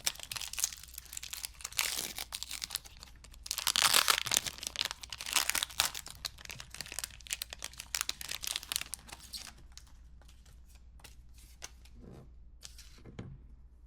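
Foil wrapper of a Pokémon booster pack being torn open and crinkled, densest and loudest about four to five seconds in, then thinning to a few scattered crackles.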